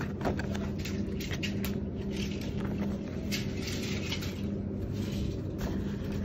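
Paper spec sheets and fabric print samples being handled and shifted by hand close to the microphone, giving scattered short rustles and clicks over a steady low hum.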